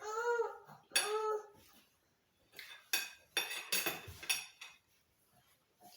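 Fork and knife clinking against a plate, with a run of sharp clinks about two and a half to four and a half seconds in. Before that come two short high-pitched vocal sounds.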